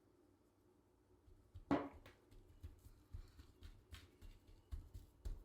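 A sharp knock, then a run of soft thumps and pats about two or three a second: hands working dry rub into slabs of raw meat on a board.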